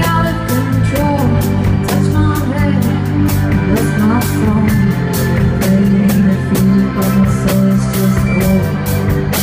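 Rock band playing live: a woman singing into a microphone over electric bass and a drum kit with regular cymbal hits.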